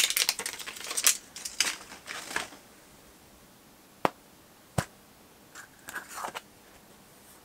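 Packaging crinkling and rustling for about two seconds, then two sharp plastic clicks about four and five seconds in as a small plastic blind capsule is pulled open, followed by a little soft rustling.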